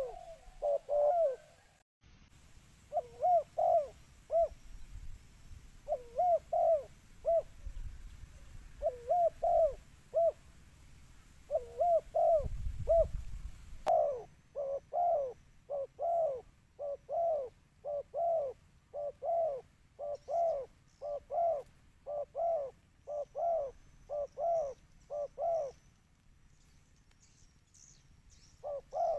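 Spotted dove (tekukur) cooing in a recorded lure call. Short phrases of a few coos come with pauses between them at first. About halfway through they give way to a fast, unbroken run of coos, roughly two a second, which stops a few seconds before the end and then starts again.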